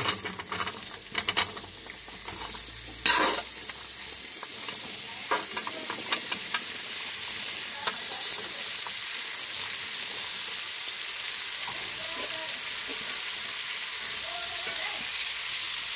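Diced pumpkin sizzling steadily in hot ghee in a steel kadhai as it is stirred, with metal clinks and scrapes of the ladle, the loudest a sharp clack about three seconds in.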